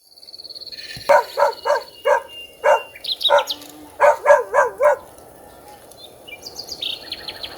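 Forest birds calling: one gives about ten loud, repeated pitched calls in quick succession, and another chirps briefly. A steady high insect trill runs under them at the start and again near the end.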